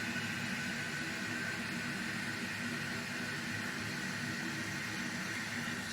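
Toilet tank fill valve hissing steadily as the tank refills with running water. The sound cuts off abruptly near the end.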